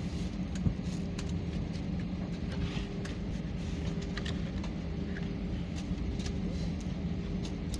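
Airliner's engines running steadily: a low rumble with a constant hum, broken by scattered small clicks.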